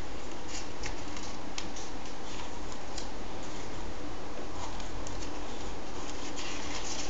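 Comic-book paper pages rustling and scraping as a page is turned by hand: a few short papery brushes and ticks over a steady hiss.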